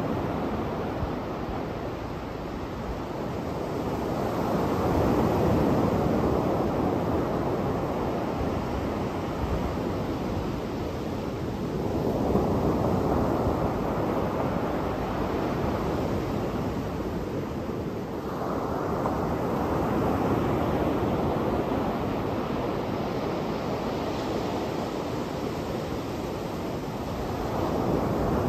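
Surf on a sandy beach: waves break on the shore in swells about every six to seven seconds, with a steady wash of water between them.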